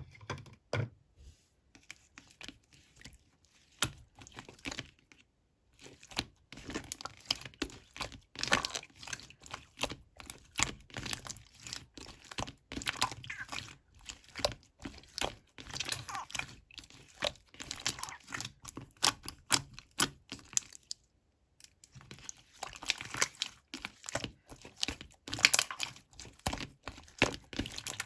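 Clear slime being squished and stretched by hand: dense, irregular wet clicking and crackling, sparse at first, with a brief pause about three-quarters of the way through.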